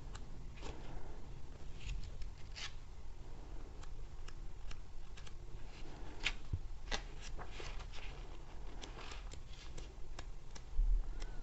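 Pages of a tarot guidebook being turned, a scatter of soft, irregular paper flicks and rustles.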